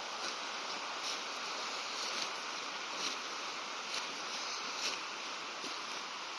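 Footsteps on a path, about one step a second, over a steady rushing outdoor background.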